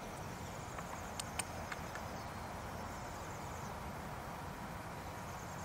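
A few light clicks and taps of a Wicked Ridge NXT 400 crossbow being handled while an arrow is reseated, over steady low outdoor background noise.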